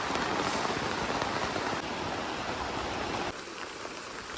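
Heavy rain falling steadily, an even hiss of rain, which becomes quieter about three seconds in.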